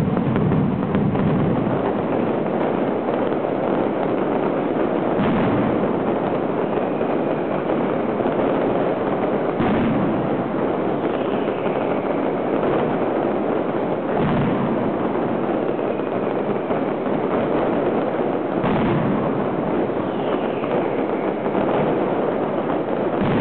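Mascletà firework barrage: a dense, unbroken rattle of masclet firecrackers, with heavier bangs about every four and a half seconds. Falling whistles from whistling rockets cut through it now and then.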